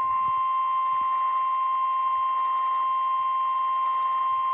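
NOAA Weather Radio's 1050 Hz warning alarm tone: one steady, unbroken tone over faint radio hiss. It is the signal that a warning message follows, here a severe thunderstorm warning.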